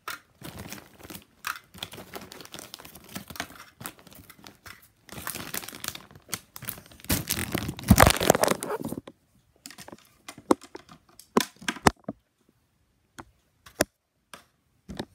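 Doritos chip bag crinkling and rustling as chips are pulled out of it by hand, loudest about eight seconds in, then thinning to a few scattered crinkles and taps.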